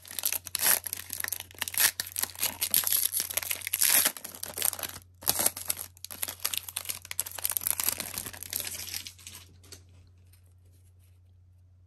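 A trading card pack's wrapper being torn open and crinkled by hand. The crackling runs for about nine and a half seconds, breaks off briefly about five seconds in, then stops.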